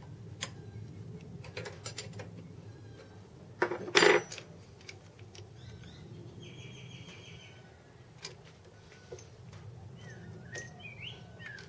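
Metal clinks and knocks of tools and parts being handled on a small bench lathe, with one louder metal clatter about four seconds in.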